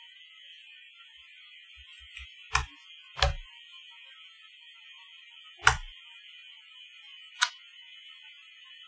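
Computer keyboard keys struck a few at a time: four sharp clicks, each with a dull thud, spread over several seconds, over a faint steady high hiss.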